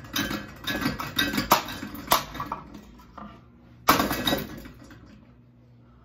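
A broken, wobbling ceiling fan clattering and clanking as it spins, with irregular sharp metal knocks, then one loud impact about four seconds in, after which the clatter dies away to a faint hum.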